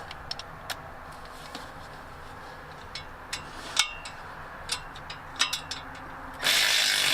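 Scattered light metallic clinks and taps of hand tools, then, about six and a half seconds in, a cordless power ratchet runs loudly for a little over a second, trying to back out a stuck starter bolt.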